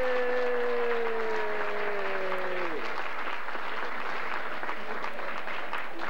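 Audience applauding, with one voice holding a long note that slowly sinks in pitch and drops away about three seconds in.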